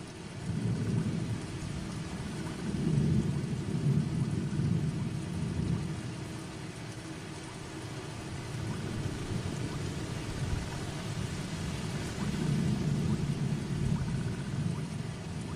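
Steady heavy rain with low rolling rumbles of thunder that swell twice, about three seconds in and again near the end.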